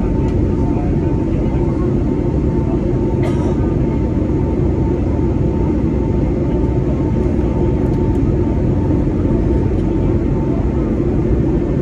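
Steady cabin roar of an Airbus A320neo in flight, heard inside the cabin at a window over the wing: engine and airflow noise with a faint steady tone running through it.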